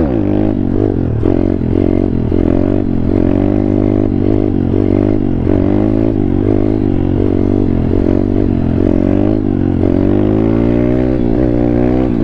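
Thumpstar 140cc pit bike's single-cylinder four-stroke engine revving under way while the bike is held up in a wheelie. The pitch repeatedly rises and drops back in quick surges as the throttle is worked on and off.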